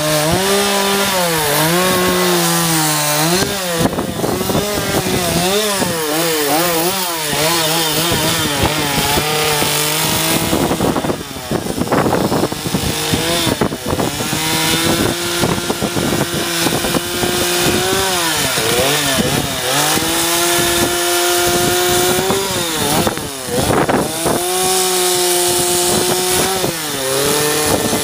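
Gas chainsaw running while carving a wooden log; the engine pitch rises and falls over and over as the chain is worked into the wood, with a couple of brief harsher, noisier stretches.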